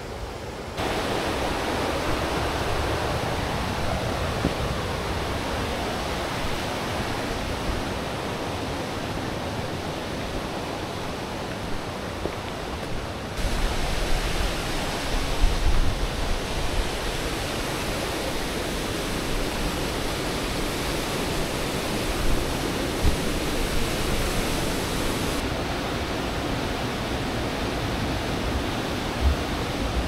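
Steady rush of water from a mountain valley stream and its falls. The level shifts abruptly about a second in, about 13 seconds in and about 25 seconds in, with a few low bumps around 15 seconds in.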